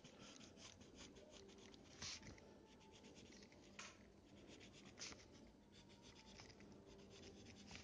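Pencil scratching on paper in a quick series of short, faint strokes, with a few louder strokes spread through.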